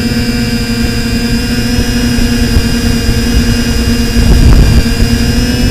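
Brushless motors and propellers of a TBS Discovery quadcopter whining steadily, heard through the onboard camera, with wind rumbling on the microphone that swells briefly about four and a half seconds in.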